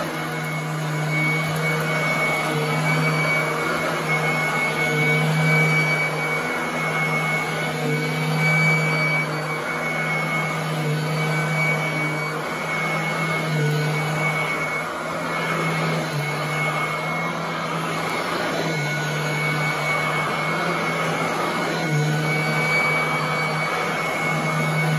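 Royal commercial upright vacuum cleaner running over carpet: a steady motor hum with a high, screaming whine on top. The level rises and falls a little as the vacuum is pushed back and forth.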